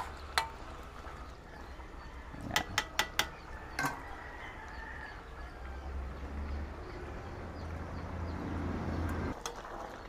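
Metal spatula stirring beef in a thick sauce in a large aluminium wok, knocking against the pan: a couple of single clanks, then a quick run of four, over a steady low rumble.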